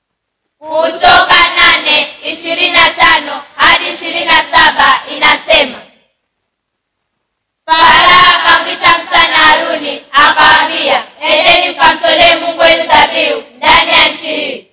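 A group of children singing together without accompaniment, in two phrases with a silent break of about a second and a half between them.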